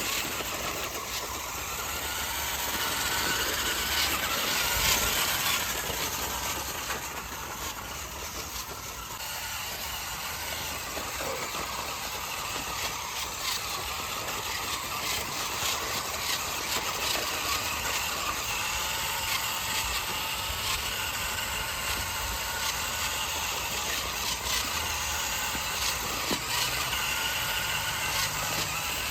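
A mini radio-controlled toy monster truck running: a steady whirring with many small clicks, swelling louder for a few seconds near the start.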